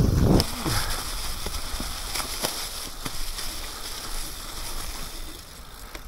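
Mountain bike rolling down a trail covered in dry fallen leaves: steady tyre and leaf noise with a few sharp knocks and rattles from the bike in the first few seconds, and a low wind buffet on the microphone at the start. The noise eases near the end as the bike reaches a smoother packed path.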